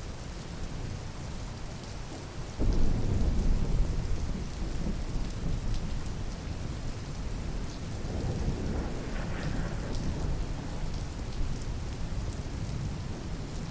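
Steady rain falling, with a roll of thunder that breaks in suddenly about two and a half seconds in and rumbles on, swelling again a few seconds later.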